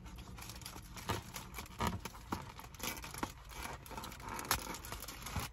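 Aluminium foil lining a takeout tray crinkling and rustling as a po' boy sandwich is handled and picked up out of it, with scattered short crackles throughout.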